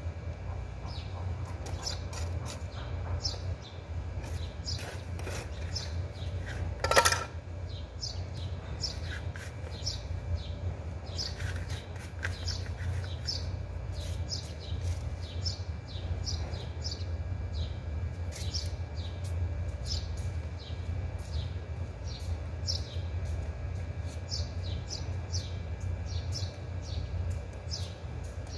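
Small birds chirping over and over in short, sharp, downward-sliding chirps, over a steady low hum. One brief loud knock about seven seconds in.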